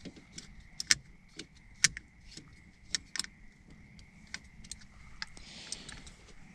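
Irregular light clicks and taps of small parts being handled while a steering wheel and its horn button are fitted, with a faint steady high tone underneath.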